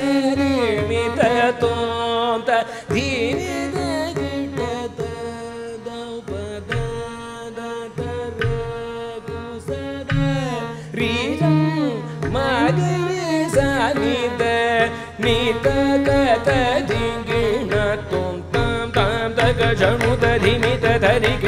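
Live Carnatic music: a male voice singing gliding, ornamented phrases with a violin following, mridangam strokes beneath and a steady tanpura drone. The drumming grows busier near the end.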